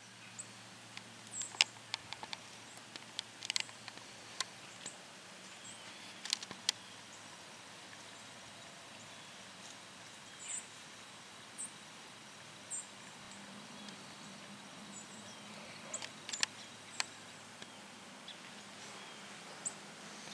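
Quiet woodland ambience: short, high, thin chirps every second or two, with scattered sharp clicks and ticks, a cluster of them in the first few seconds and again about sixteen seconds in.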